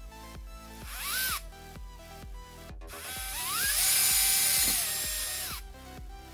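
Small Bosch cordless drill boring into a plastic conduit tube: a short spin-up and stop about a second in, then a longer run that speeds up, holds and winds down again.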